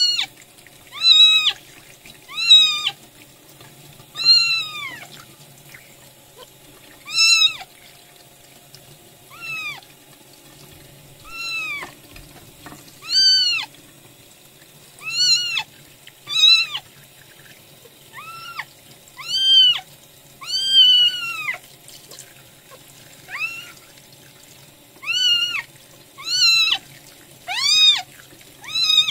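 Very young kitten mewing loudly again and again, a high cry every one or two seconds, each one rising and then falling in pitch. Underneath, a tap runs steadily, the water pouring over the kitten's rear as it is washed.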